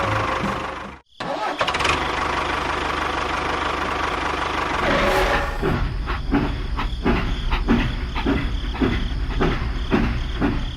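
An engine running: steady at first, then settling into a slow rhythmic chugging of about two to three beats a second from about halfway, after a brief cut about a second in.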